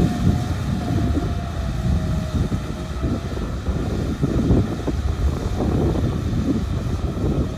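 Kubota M6040SU tractor's diesel engine running steadily under load while its rear rotary tiller churns wet paddy mud, with a faint whine above the engine that wavers in pitch.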